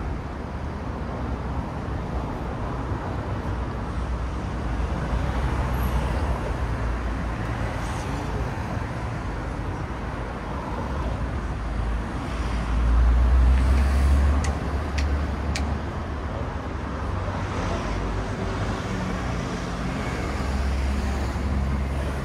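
Road traffic on a city street: a steady rumble of passing cars, with one louder vehicle going by about 13 seconds in.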